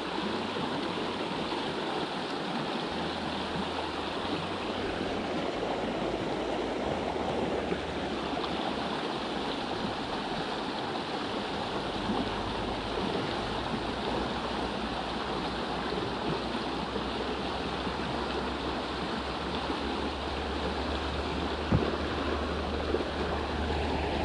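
Shallow river water running steadily, a continuous even rush. One brief knock about 22 seconds in.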